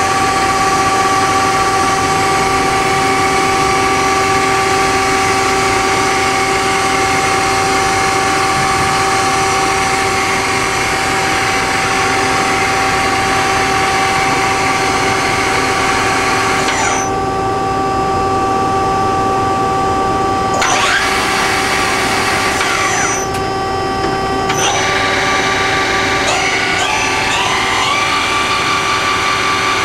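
1986 Tsugami MA-3H CNC horizontal machining center, with its gear-driven spindle, running a program: a steady machine whine of several tones over a hiss. The hiss drops out briefly about halfway through and again a little later, and rising and falling whines come in near the end.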